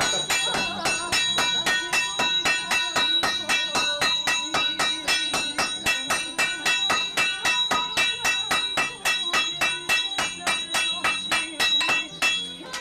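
Hammer blows on red-hot iron lying on a blacksmith's anvil, in a rapid, even rhythm of roughly four to five strikes a second. Each strike rings with a bell-like metallic tone, and the hammering stops just before the end.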